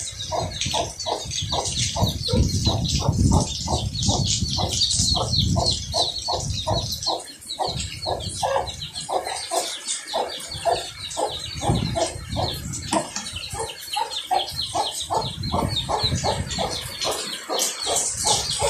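A mother hen clucking steadily to her chicks, short clucks at about two to three a second, with the chicks' high rapid peeping over them.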